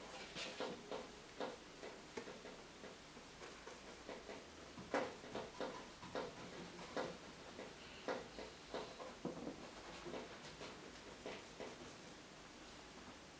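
Paintbrush dabbing and stroking oil paint onto canvas: a faint run of irregular soft taps and scratchy strokes, the loudest about five seconds in.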